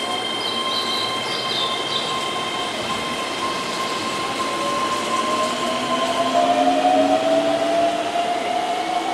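Keihan 13000-series electric local train running past on the track. Its motor whine rises steadily in pitch through the second half, and steady high tones run underneath.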